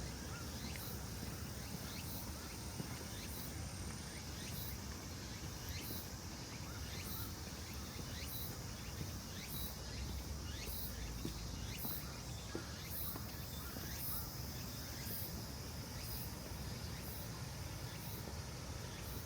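Insects chirping in a steady, even rhythm of short high-pitched pulses, about three every two seconds, over a low, steady rumble.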